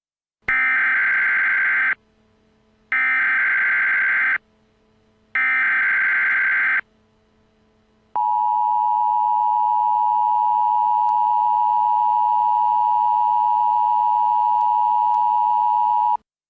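Emergency Alert System SAME header: three short bursts of screechy digital data tones, each about a second and a half long with a pause between them. Then the steady two-tone EAS attention signal sounds for about eight seconds and cuts off suddenly, announcing an emergency alert.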